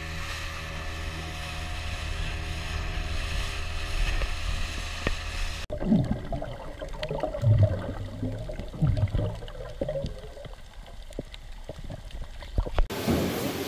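Motorboat engine running steadily as the boat moves over open water. About halfway through it cuts abruptly to muffled underwater sound: irregular bubbling and gurgling, with a few knocks, from a snorkeller diving.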